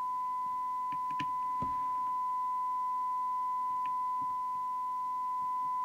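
Steady, unwavering test tone from the Cobra UK75ST CB radio's receiver: the signal generator's tone modulation recovered as audio while the detector coil is tuned for maximum recovered audio. A few faint clicks come about a second in from the trimming tool working the core.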